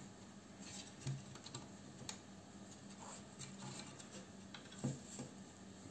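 Faint soft clicks and rustling of hand crocheting with a wooden hook, yarn drawn through stitches, with a few small ticks spread out at irregular intervals.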